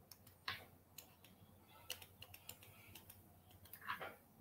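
Faint, irregular clicks and taps of computer input, about a dozen scattered through near silence.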